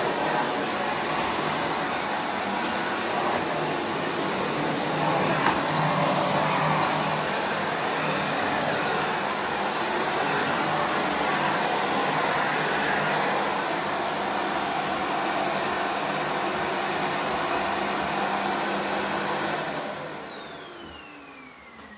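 Miele Boost CX1 bagless canister vacuum running steadily while its Parquet Twister floor nozzle is pushed over a tiled floor. About 20 seconds in it is switched off, and the motor's whine falls in pitch as it spins down.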